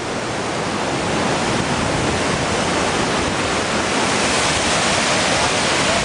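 Waterfall rushing steadily, an even wash of water noise that grows slightly louder over the first couple of seconds and then holds.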